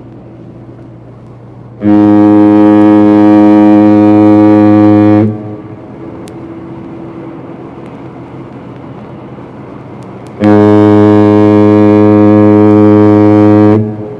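Ship's foghorn sounding two long, deep, steady blasts of about three and a half seconds each, some five seconds apart, as a fog signal warning other vessels of the ship's presence. A quieter low rumble runs between the blasts.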